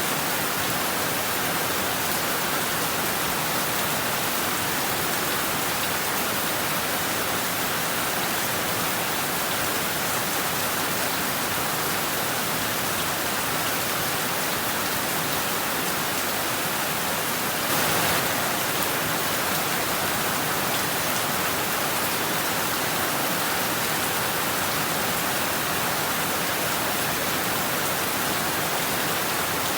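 Heavy rain falling steadily on rooftops and trees, an even hiss with no let-up, briefly swelling a little louder a little past halfway.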